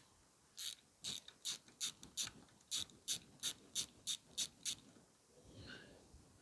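A ratchet mechanism being worked: about a dozen sharp, evenly spaced clicks, roughly three a second, that stop about two-thirds of the way through, followed by a faint brief rustle.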